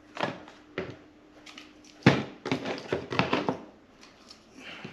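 Supply containers and a syringe being handled and set down on a table: a series of light knocks and taps. There are two in the first second, then a quicker run of them about two seconds in.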